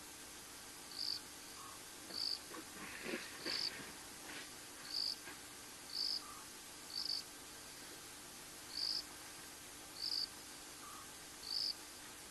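A night insect chirping in short high notes about once a second. About three seconds in, a couple of seconds of water splashing from an elephant's trunk at a concrete trough.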